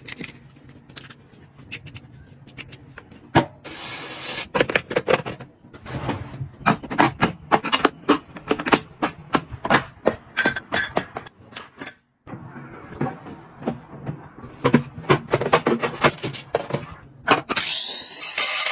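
Kitchen items being handled during restocking: a rapid run of clicks, taps and knocks as containers and packaging are picked up and set down, with rustling between them. There is a short hiss about four seconds in and a louder steady hiss near the end.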